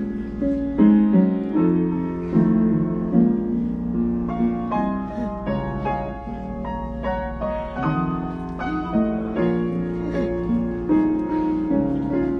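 Slow, gentle keyboard music of sustained chords with a melody above, changing every second or so, over a steady low hum.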